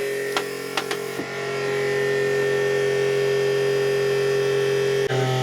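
Electric pump of a newly installed Spectra watermaker running with a steady hum on its first trial run, water not yet through to the outlet. A few light clicks come in the first second or so, and near the end the hum changes abruptly, its low part growing louder.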